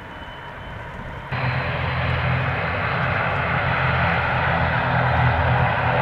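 ATR 72-600 turboprop engines and propellers running with a steady, low drone and a broad rushing noise over it. About a second in, the sound jumps suddenly louder, then keeps slowly building.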